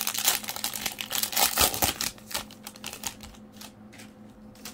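Foil wrapper of a 2022 Topps Series 1 baseball card pack crinkling as it is torn open: a dense run of crackles for about two seconds, then a few scattered rustles and clicks that die away before the end.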